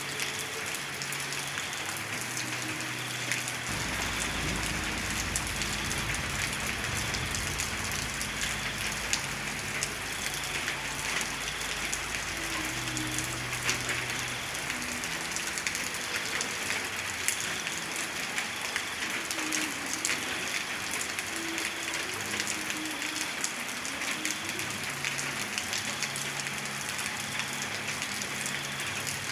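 Heavy rain falling steadily on a surface, a dense even hiss of drops. A low rumble comes in about four seconds in and fades out around fifteen seconds in.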